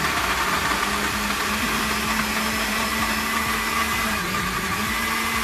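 Electric blender running steadily with an even motor hum, blending soaked bread, tomatoes and water into salmorejo.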